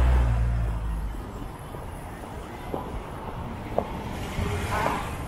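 City street traffic. A nearby vehicle's engine drone fades away in the first second, leaving a steady hum of traffic with a few light clicks. Near the end a motor scooter passes close by.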